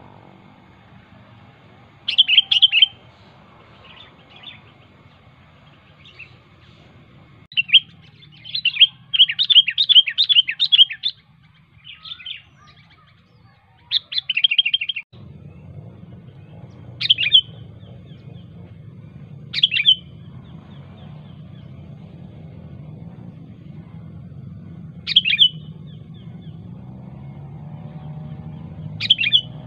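Sooty-headed bulbul calling: loud, sharp chirps, with a quick run of them about eight to eleven seconds in and single calls every few seconds after that. A low, steady background hum grows louder about halfway through.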